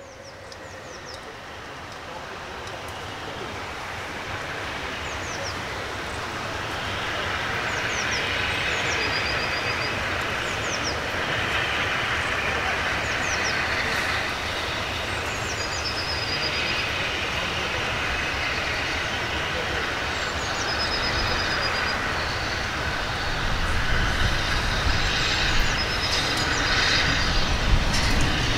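Steam locomotive hauling a train of coaches, approaching and working steam, its sound growing steadily louder. A bird chirps repeatedly above it.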